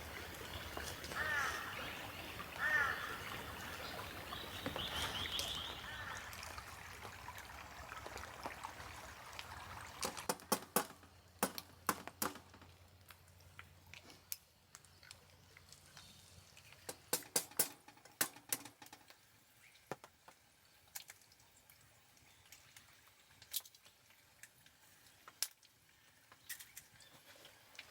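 Birds calling a few times in the first several seconds, then clusters of sharp clicks and taps, several in quick succession around the middle and single ones scattered toward the end.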